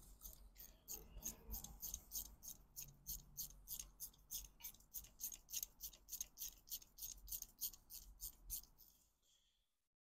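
Ratchet wrench clicking steadily, about three to four clicks a second, as a threaded brake-pad retaining pin is backed out of a motorcycle front brake caliper with a 5 mm Allen bit; the clicking stops near the end.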